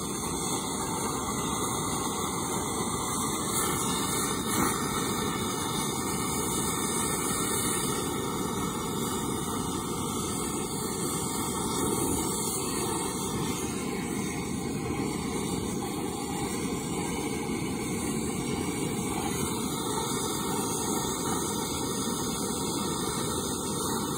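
Handheld gas torch flame running steadily with an even rushing hiss, heating an old control arm bushing casing to melt out the rubber bushing.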